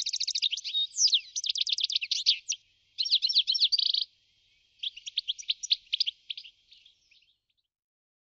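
European goldfinch singing: a fast, high twittering song in three runs, stopping about seven seconds in.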